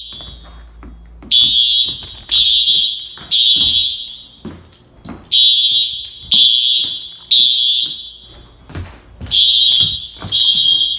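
Building fire alarm sounding its high-pitched evacuation signal: three long beeps, a pause, then three again, repeating in the temporal-three pattern that calls for evacuation.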